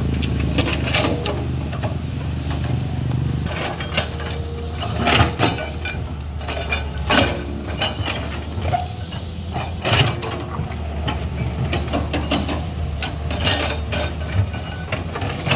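Tracked hydraulic excavator's diesel engine running steadily, with irregular clanks and knocks from the machine as it works.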